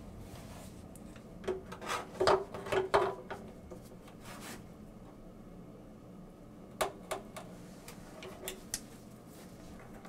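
Large tongue-and-groove pliers clicking and scraping against the screw-in upper heating element of an electric water heater as it is loosened and turned out of the tank. The clicks and scrapes come in scattered bunches, about two seconds in and again about seven seconds in.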